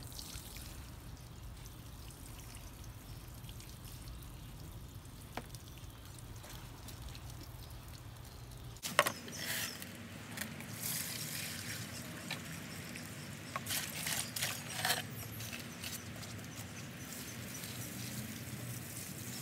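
Compost tea being poured onto garden beds, a steady trickle of liquid. About nine seconds in the sound changes abruptly, with a sharp knock followed by scattered clicks and knocks.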